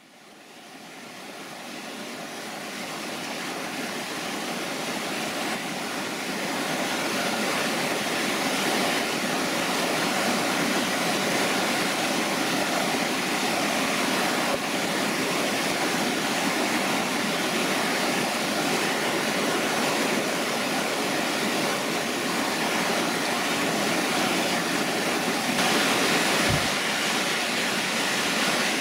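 Mountain river rushing over rocks and small rapids: a steady rush of water that fades in over the first few seconds, with a brief low thump near the end.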